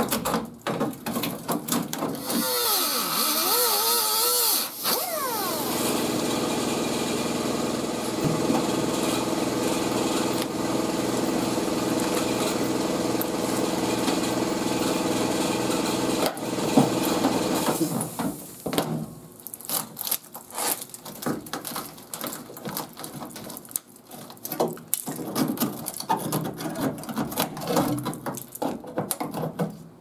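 Die grinder cutting rusted sheet metal out of a pickup's wheel well: its whine wavers in pitch for the first few seconds as it bites, then runs steadily for about ten seconds and stops. After it come irregular clicks and clatter of metal being handled.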